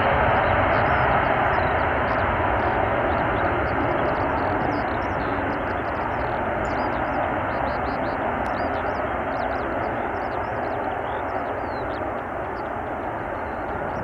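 Airplane passing, a loud steady rush of engine noise that slowly fades away.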